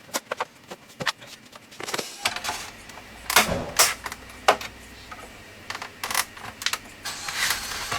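Plastic case of an Acer LCD monitor being pried open: irregular clicks and snaps as the cover's clips give, with scraping and a few louder cracks in the middle.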